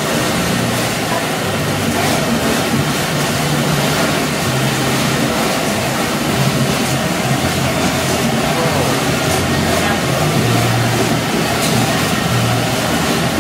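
Cider mill machinery running: apple conveyor, washer and bottling line making a loud, steady mechanical noise with a constant low hum.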